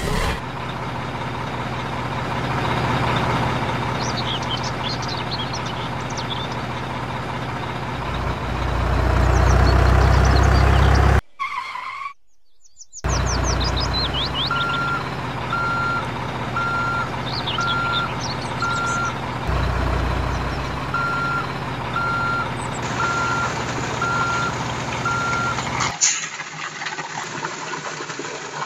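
Truck engine running, with a reversing alarm beeping a little more than once a second in two runs of about six beeps. Birds chirp faintly above it.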